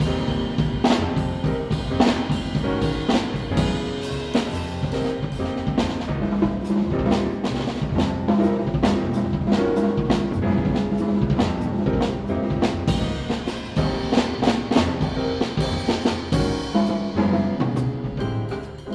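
Jazz combo music with the drum kit to the fore: busy snare, bass-drum and cymbal strokes over piano and upright bass, with the alto saxophone out.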